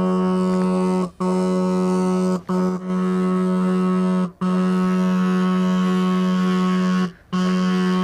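A 12 V motorcycle electric disc horn sounding while fully submerged in a cup of water. It gives one steady tone in long blasts, cut off briefly four times as the wire's contact on the battery terminal is broken and made again. The water makes its sound much weaker, and the horn sets the water vibrating.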